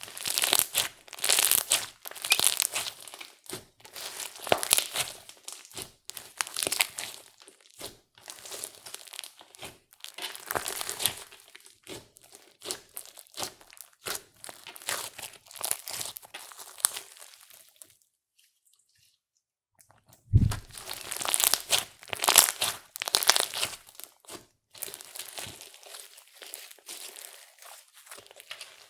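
Hands kneading and squeezing clear slime mixed with makeup and glitter: sticky crackling and clicking in quick clusters as air pockets pop. The crackling stops for about two seconds past the middle, then a single low thump is heard and the crackling starts again.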